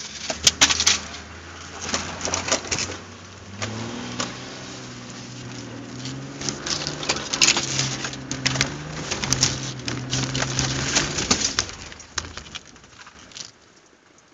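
Four-wheel-drive's engine labouring up a steep rutted dirt climb, its note stepping up about four seconds in, with sharp knocks and clatter from the tyres and suspension over the rough ground. Near the end the engine note dies away: the engine has stalled on the climb.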